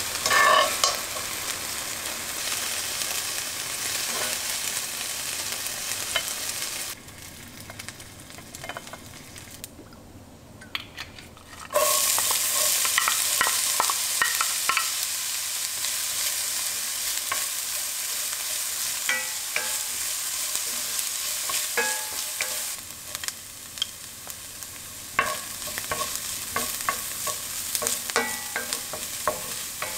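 Diced chicken breast sizzling in oil in a frying pan as it is turned with metal tongs. After a quieter stretch, a sudden loud sizzle starts about twelve seconds in as diced onion sautés in hot oil in a pot. A wooden spatula stirs it with scattered clicks and scrapes against the pot.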